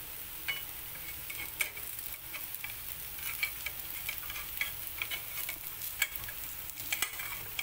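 Dosa sizzling with oil on a hot flat pan, a steady crackling hiss. A steel turner scrapes and clicks against the pan several times as it works under the edge to loosen the crisp dosa.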